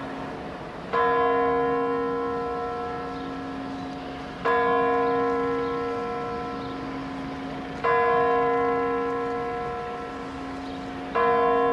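A large bell tolling slowly: four strikes about three and a half seconds apart, each ringing on and fading over a lasting low hum.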